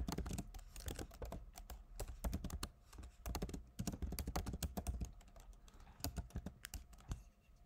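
Typing on a computer keyboard: a quick, irregular run of keystroke clicks that thins out and stops near the end.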